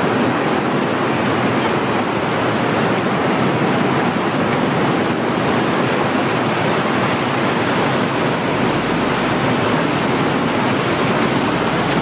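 Strong wind rushing steadily over the microphone.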